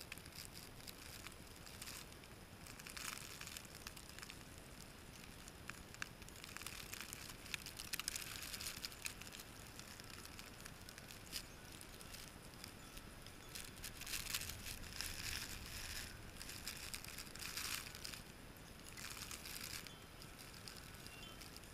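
Blizzard wind driving snow: a hiss that swells and fades in gusts every few seconds, with fine crackling ticks of snow striking.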